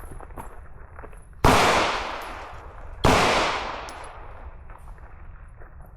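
Two gunshots about a second and a half apart during a timed competition stage, each with a long tail of echo that dies away.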